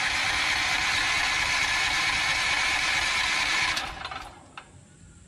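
The electric starter cranks a Westinghouse WGen9500DF generator's 420cc four-stroke OHV engine on a first cold start with automatic choke. It runs steadily for about four seconds, then stops, and the engine does not keep running.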